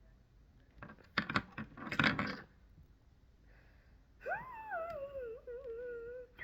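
Slime being handled, with a quick run of sticky crackles and pops, then a long wavering whine-like note that rises briefly and then slides down in pitch.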